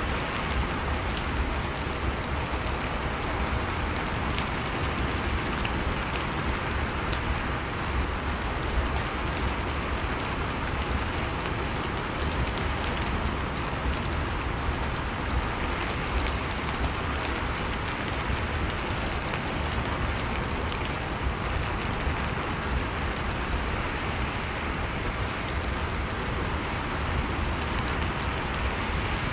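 Steady rain falling, an even hiss with scattered drop ticks and a low rumble underneath, unchanging throughout.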